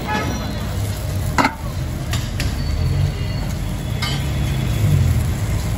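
Metal spatula spreading chutney over a dosa on a hot flat griddle (tawa), with light sizzling and a few sharp scrapes and taps against the pan. A steady low hum runs underneath.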